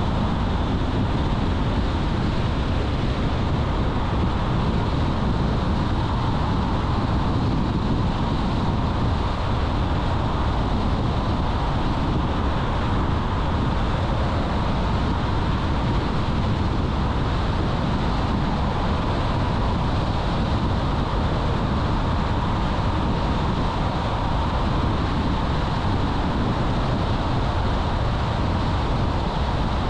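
Car driving at a steady speed: continuous road and tyre noise with engine hum, unchanging throughout.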